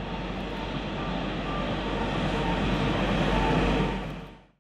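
Steady rushing ambient noise that grows slightly louder, then fades out near the end.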